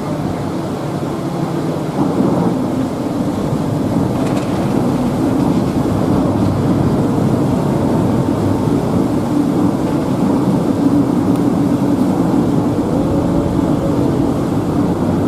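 Passenger ferry's engine running with a steady low hum under a continuous rushing noise of water and wind.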